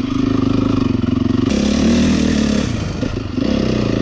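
Honda CRF450 dirt bike's single-cylinder four-stroke engine running. Its note drops with a sharp click about a second and a half in, goes rough briefly, then steadies again near the end.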